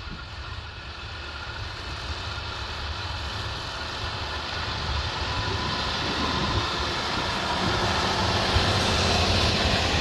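John Deere 6215R tractor's six-cylinder diesel engine working under load as it pulls a Kverneland reversible plough through the soil, growing steadily louder as the tractor approaches and passes close by.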